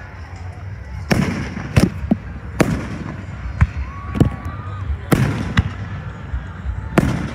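Aerial firework shells bursting overhead: a run of about nine sharp bangs at irregular intervals, some close together, each followed by a short low rumble.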